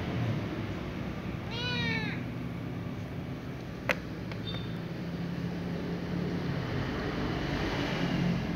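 A little ginger cat meows once, a short call of about half a second, about two seconds in. A sharp click follows a couple of seconds later, over a steady low hum.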